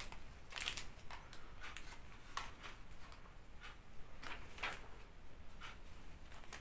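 Scattered light clicks and rustles from a small Sony Handycam camcorder and its accessory cable in a plastic bag being handled.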